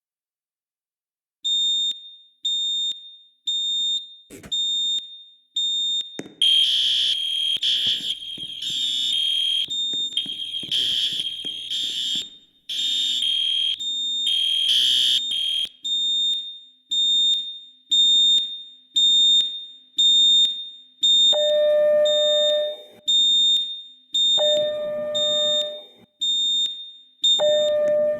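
School fire alarm sounding during a test: a high electronic tone pulsing about once a second, starting a moment in. A louder, harsher alarm pulses over it through the middle, and three longer, lower tones sound near the end.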